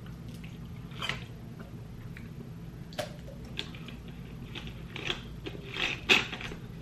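A plastic drink bottle being handled and its cap twisted back on: a few short crackles and clicks, the loudest near the end, over a low steady hum.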